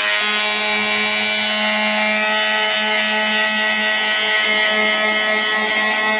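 Electric detail sander running with a steady hum, its pad rubbing against a football cleat's mesh upper.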